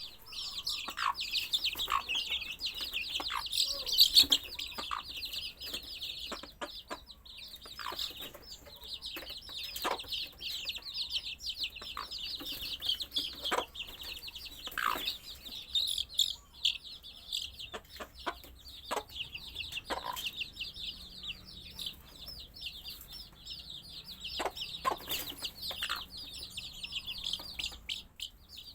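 Many baby chicks peeping continuously, a dense chorus of high-pitched chirps, with scattered soft taps and knocks among them.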